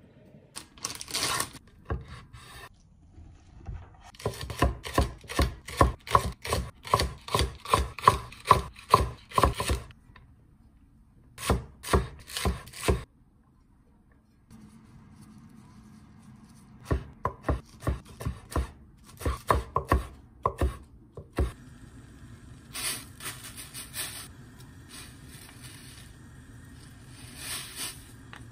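A kitchen knife chopping on a wooden cutting board, scoring sausages and then slicing green onions, in quick runs of sharp knocks about three or four a second with short pauses between runs. After about twenty seconds it gives way to quieter stirring and scraping in a stainless steel pot of sauce.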